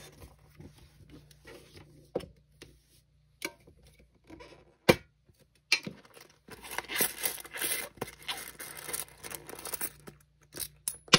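Plastic bag crinkling inside a round coin tin for a few seconds as it is handled, after scattered light taps and one sharp click about five seconds in. A sharp clink of coins comes right at the end.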